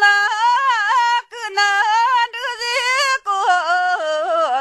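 A woman singing an Amdo Tibetan folk song solo, without accompaniment, in a high voice with quick ornamental turns on held notes. She pauses briefly for breath about a second in and again about three seconds in.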